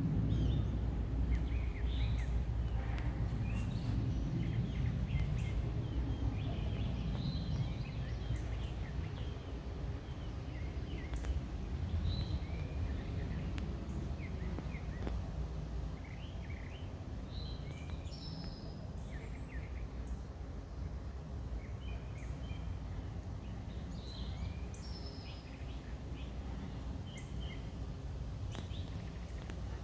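Songbirds chirping in short, high calls scattered throughout, over a steady low rumble of background noise.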